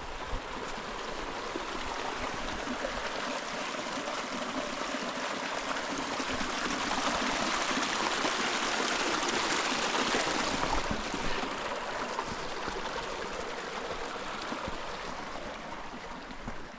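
Creek water rushing steadily, swelling louder toward the middle and easing off near the end.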